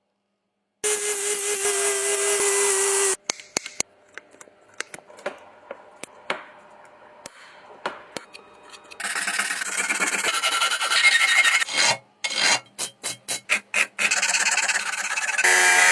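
Abrasive rubbing and scraping on the metal body of an antique oil can during restoration, in several loud stretches with quieter handling clicks and taps between them. Near the end comes a run of quick back-and-forth strokes, about three or four a second.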